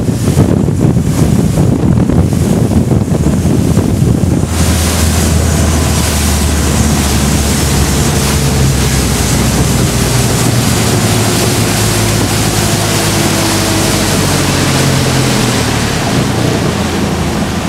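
3.0-litre turbo-diesel outboard running at speed under way, heard beneath heavy wind buffeting on the microphone and the rush of water off the hull. About four and a half seconds in, the spray hiss brightens and a steady low engine drone comes up.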